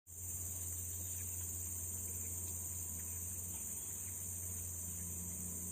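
Steady, unbroken chorus of insects, crickets, high-pitched, with a low steady hum underneath.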